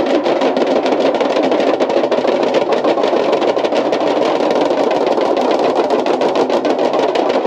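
Several large damrus, hourglass drums beaten with sticks, playing together in a fast, unbroken roll.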